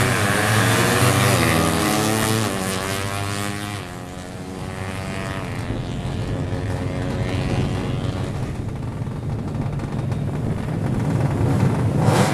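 Drag racing motorcycles at full throttle, engines revving up and shifting through the gears. The engine sound fades after about four seconds to a quieter, steady drone as the bikes run off down the strip.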